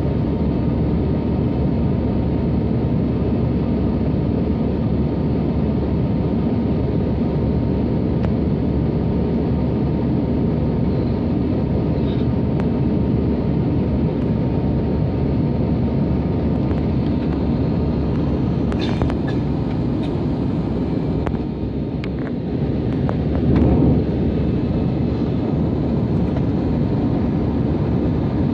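Steady cabin roar inside an Airbus A320 climbing after takeoff: engine and airflow noise heard through the cabin, with a faint steady whine above it. A few faint clicks come about two-thirds of the way through.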